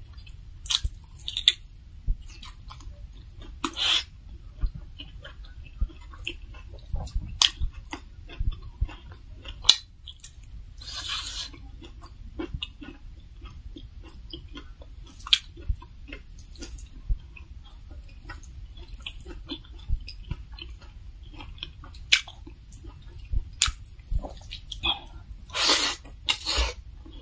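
Close-miked chewing and mouth sounds of someone eating fried pork belly and rice by hand: irregular wet smacks, clicks and crunches, with a few longer hissing mouth sounds about halfway through and near the end.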